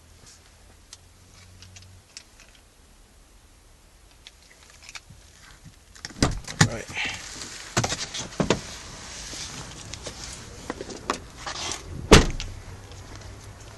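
Front passenger door of a 2013 Ford Explorer being opened and shut as someone gets out: a few quiet seconds, then clicks, knocks and rustling, and a single loud thud about twelve seconds in as the door closes.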